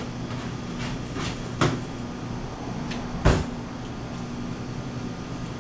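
Two dull knocks, a little under two seconds apart, the second louder, over a steady low machine hum, with a few faint small clicks in between.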